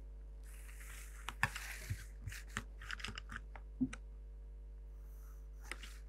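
Pencil scratching along drawing paper on a drafting board, followed by a string of light taps and clicks as the pencil and set square are set down and moved on the board.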